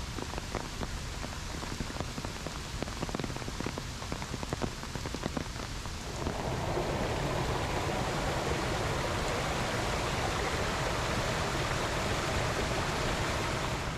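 Heavy rain falling, with sharp individual drop ticks at first. About six seconds in it turns into a denser, louder, steady downpour hiss.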